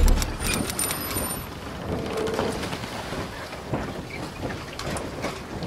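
Logo-intro sound effect: a deep boom at the start, then a steady rushing hiss full of small crackling clicks, with a brief tone about two seconds in.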